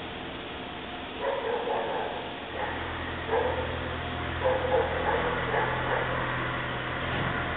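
CNC milling machine cutting under flood coolant: a series of short, pitched squeals from the cutter, about one a second. A steady low machine hum comes in about a third of the way through.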